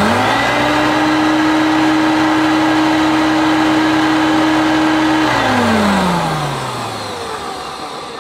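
Hoover Concept One U4219 upright vacuum cleaner's motor spinning up within a second to a steady, noisy whine, running for about five seconds, then switched off and winding down with falling pitch. On this first test run it sounds okay.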